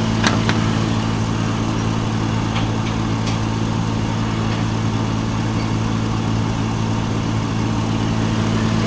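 A vehicle engine idling steadily, with an even low hum that does not change.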